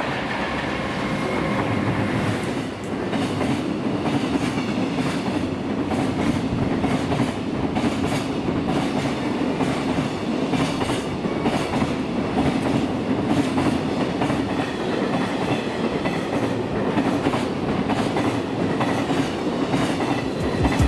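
A train moving along the station track, with a steady running hum and repeated clicks of wheels over rail joints.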